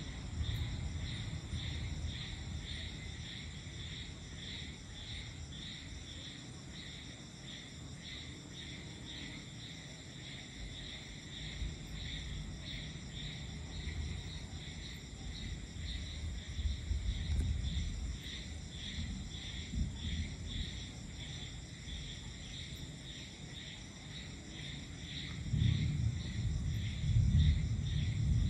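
Night insects chirping in a steady, evenly pulsing chorus, under the low rumble of distant thunder that swells in the last few seconds.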